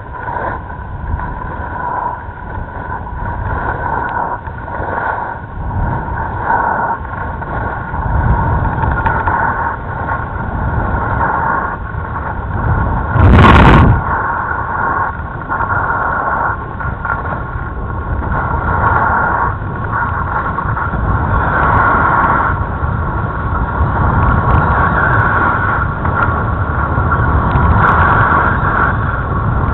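Wind buffeting the microphone while skiing downhill, a rumbling rush that swells and fades every second or two with the skis scraping over packed snow. A single loud knock about halfway through.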